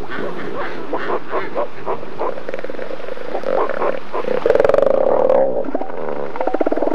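Southern elephant seals calling on a crowded breeding beach: a jumble of short overlapping calls, then a loud, rapidly pulsing call from a bull about four and a half seconds in, and another pulsing call near the end.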